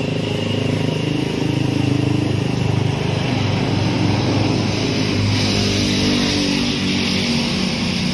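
An engine running steadily, a continuous low hum with a slight wavering in pitch, with added hiss from about five seconds in.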